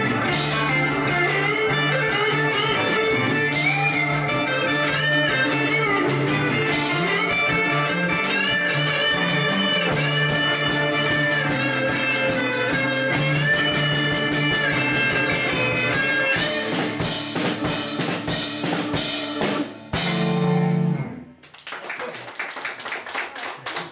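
Live rock band of electric guitars, bass guitar and organ playing the end of a song. It closes with a run of stabbed hits and a final held chord that cuts off suddenly, followed by clapping.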